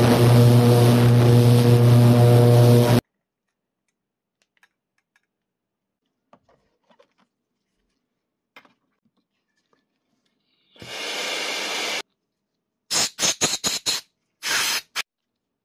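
An ultrasonic cleaner humming steadily, cutting off abruptly about three seconds in. Faint clicks of small metal parts follow, then an aerosol spray can hisses, once for about a second and then in several short quick bursts.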